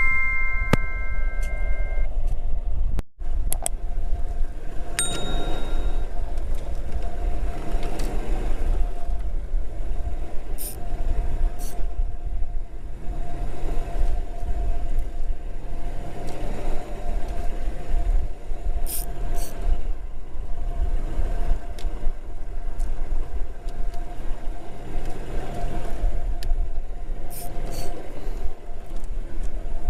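Boat engine running steadily under way, a low rumble with a steady hum over it. A short chime of held tones ends about two seconds in.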